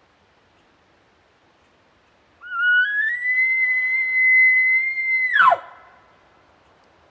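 An elk bugle: a whistling call that climbs in steps to a high note, holds it for about two and a half seconds, then drops sharply away.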